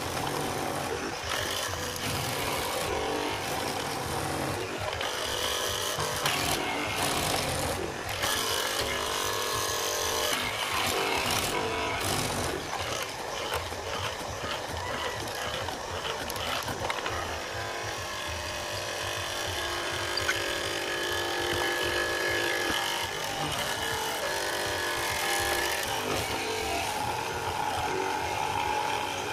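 Hollow-chisel mortising machine running, its square chisel and inner auger boring into a timber beam and chewing out wood chips as a mortise is cut.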